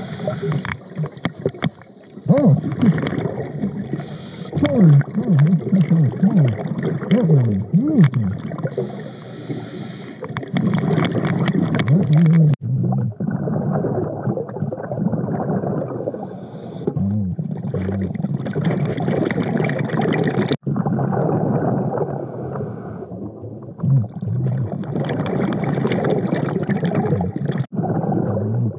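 Underwater sound of a diver breathing through a regulator: gurgling exhaled bubbles and pitched sounds that rise and fall, over a steady low hum. It breaks off suddenly three times.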